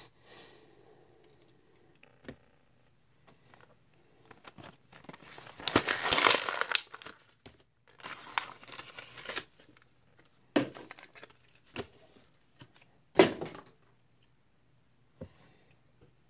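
Handling noise from die-cast toy cars and their packaging on a table: crinkling rustles, loudest in two spells near the middle, then a few sharp knocks as small metal cars are set down or picked up.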